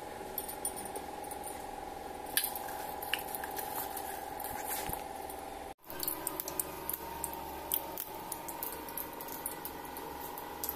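Kitchen handling sounds: scattered small clicks and soft squishes over a steady hum.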